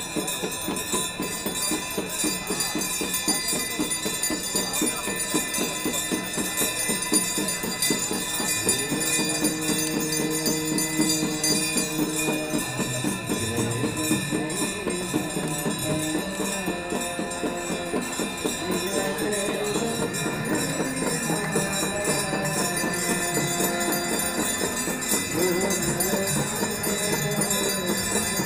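Ganga Aarti devotional music: steady ringing of hand bells and a rhythmic jingling beat, with a singing voice carrying the aarti melody from about a third of the way in.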